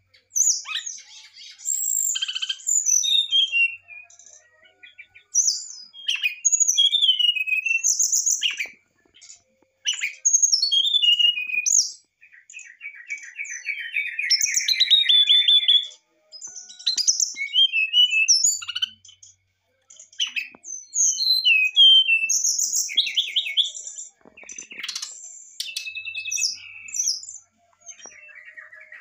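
Brown-chested jungle flycatcher singing a varied, fluty song: bursts of quick whistled notes, sliding up and down, separated by short pauses. About halfway through, one phrase is a rapid run of repeated notes.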